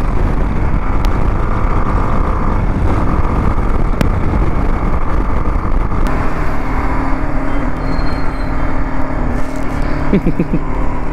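BMW G 310 GS single-cylinder engine running at road speed, with wind rushing over the microphone; a steady engine tone comes through more clearly about halfway through.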